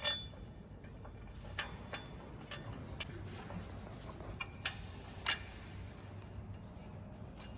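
Scattered metallic clicks and clinks of hand tools and bolts while a bracket is bolted on: a sharp ringing clink at the start, then half a dozen lighter clicks at uneven intervals, over a low steady hum.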